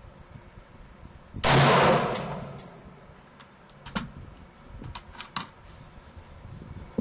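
A single loud gunshot from a Kel-Tec PLR-16 5.56 mm semi-automatic pistol, about a second and a half in, with a ringing tail. A few lighter metallic clinks and knocks follow over the next few seconds.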